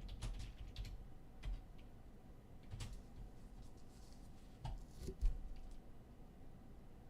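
Computer keyboard typing and mouse clicks, scattered and irregular, as a randomizer is set up and run; a couple of louder taps come about five seconds in.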